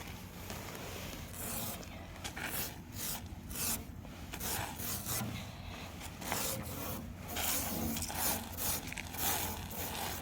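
A fingertip scratching and rubbing through frost on a frozen surface, making a run of irregular raspy scraping strokes as letters are written in the ice.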